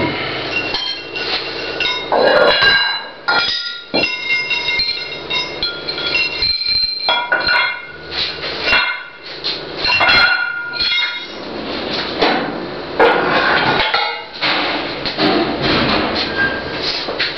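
Metal weight plates clinking and clanking against each other and the metal rack in irregular knocks, some with a short ringing tone.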